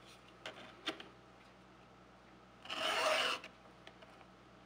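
A Stihl 2-in-1 chain file guide drawn once across a chainsaw cutter tooth, one short rasping scrape of the file about two-thirds of the way in, sharpening the tooth's cutting edge. Two faint clicks come about half a second and a second in.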